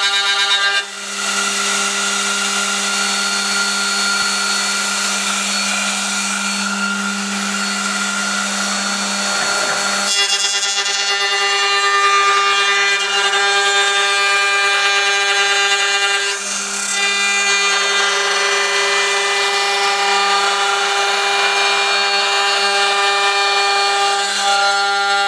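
CNC router spindle motor running with a steady pitched whine while the machine is set up for datuming against a wooden workpiece. The tone changes briefly about a second in, about ten seconds in, and again about sixteen seconds in.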